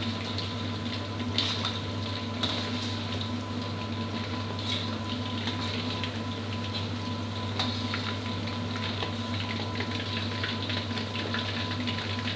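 Chicken wings deep-frying in hot oil in a wok, the oil sizzling steadily. A few light clicks come in the first five seconds, as a wire-mesh strainer touches the wok while scooping out fried lemongrass, garlic and kaffir lime leaves.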